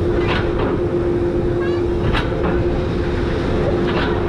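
Suspended roller coaster climbing its lift hill: a steady hum from the lift drive over a low rumble, with a pair of sharp clacks about every two seconds.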